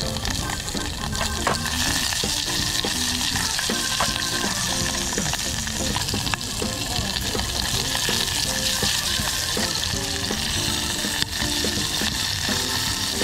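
Steady hissing noise throughout, with a faint tune of short stepped notes underneath.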